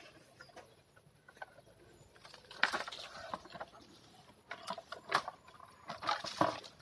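Leaves and twigs of a rambutan tree rustling and crackling as a bamboo picking pole is worked among the branches to twist off fruit: a series of short rustles and snaps starting about two and a half seconds in.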